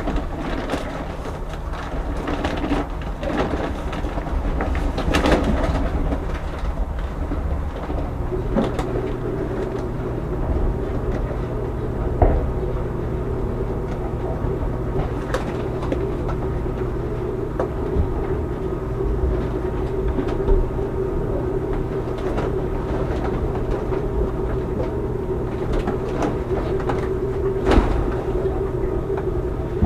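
Steady hum of running machinery over a low rumble. Its tone shifts and firms up about eight seconds in. A few sharp knocks and clunks come through it, the loudest about twelve seconds in and again near the end.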